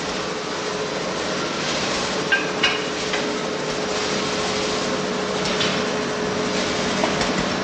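Steady running noise of coffee roasting machinery, a continuous whirring hum with a low and a mid tone held throughout. A few short, sharp clinks sound about two and a half to three seconds in, and one more near the end.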